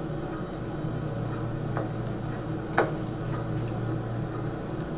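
Room tone with a steady low hum, broken by a faint click a little under two seconds in and a sharper click just under three seconds in.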